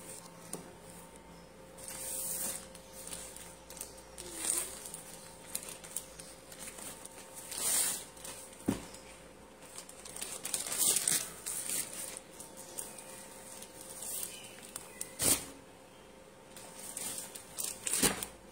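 Folded cloth and plastic packaging rustling as stacks of unstitched suit fabric are picked up and laid down, in short bursts every second or two, with a few sharp taps.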